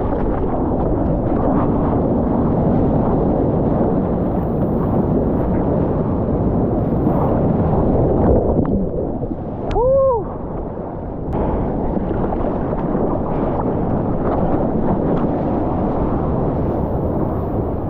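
Ocean water rushing and churning around a surf-mounted action camera, with wind buffeting the microphone. About ten seconds in, a short pitched call rises and falls once.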